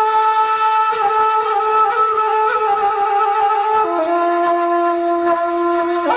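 A wind instrument playing a slow melody of long held notes, dropping to a lower note about four seconds in.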